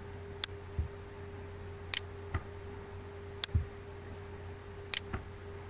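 Computer mouse clicking while points are dragged on screen: four sharp clicks about every second and a half, each followed by a softer low knock, over a steady low hum.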